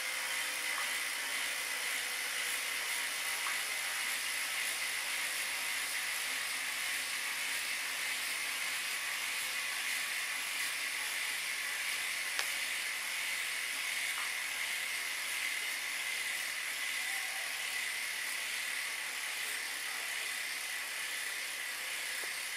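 Bianchi Oltre road bike's rear wheel spinning on a Technogym Spin Trainer roller: a steady whirring hiss with a constant high whine.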